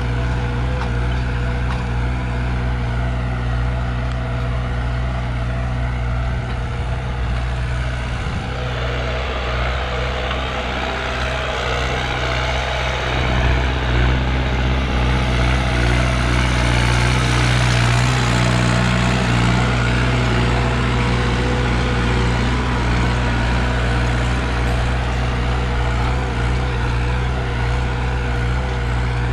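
New Holland 5630 tractor's diesel engine running steadily at about 1800 rpm under load, pulling a disc harrow through tilled soil. A steady low drone that grows louder for a few seconds midway.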